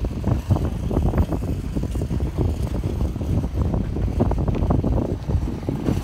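Wind buffeting the microphone: a low, fluttering rumble that rises and falls in irregular gusts.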